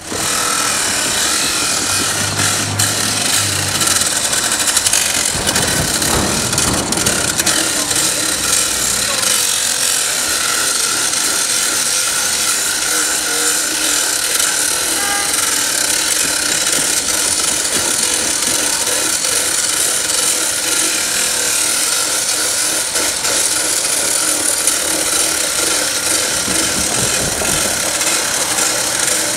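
Hydraulic abrasive rail saw grinding through a steel rail, cutting a replacement rail to length: a steady, high grinding hiss.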